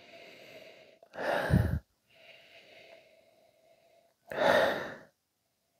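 A man sniffing whisky in a nosing glass held under his nose: two long inhalations through the nose, about three seconds apart.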